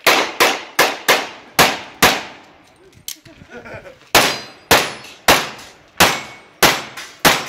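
Pistol shots fired in rapid succession: six quick shots in about two seconds, a pause of about two seconds, then six more at a slightly slower pace, each a sharp crack with a short ringing tail.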